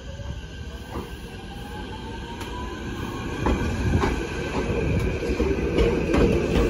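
Nagano Electric Railway 3000 series electric train pulling away, its traction-motor whine rising steadily in pitch as it accelerates. Wheel clicks over rail joints come faster and louder as the cars pass close by.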